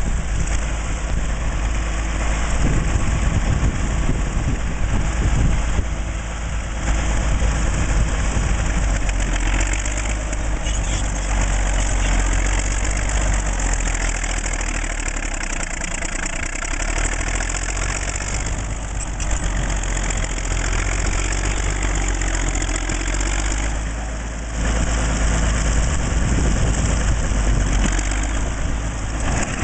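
1940s Caterpillar D8 bulldozer's diesel engine running steadily, its level swelling and easing slightly.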